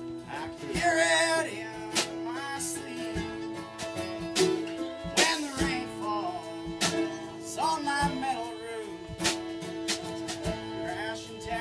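Live bluegrass band playing: fiddle and mandolin over a strummed acoustic guitar and a drum kit, with sharp beats landing about every second and a half.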